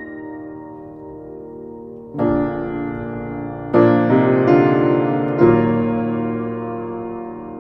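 Piano playing slow, sustained chords: a new chord is struck about two seconds in, again near four seconds and near five and a half seconds, each one ringing on and slowly fading.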